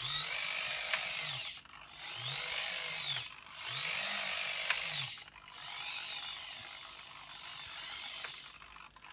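The electric motor that turns the InMoov robot's torso, whining in five separate moves of about a second and a half each. Each whine rises and then falls in pitch as the motor speeds up and slows down, and the last two are fainter.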